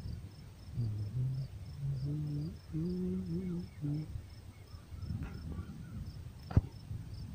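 Crickets chirping steadily in a high, regular pulse about three times a second. Near the end there is a single sharp tap.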